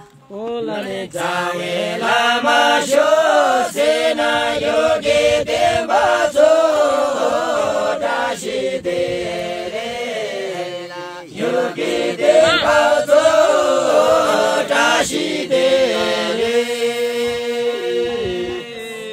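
Jhankri shamans singing a chant-like song together without instruments, in long held phrases with a short break about eleven seconds in.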